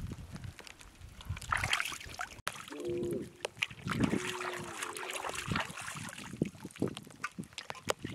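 Water splashing and trickling as hands wash vegetables in a shallow pool, in many short irregular splashes. Two brief pitched calls sound about three and four and a half seconds in.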